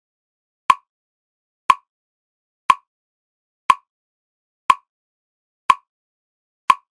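Short, sharp ticks at an exact pace of one a second, with silence between them: seven ticks in all.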